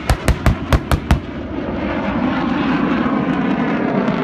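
A rapid string of about half a dozen pyrotechnic blasts from a simulated beach bombing run, ending a little over a second in. A steady rumble from the BAE Hawk jet flying overhead follows.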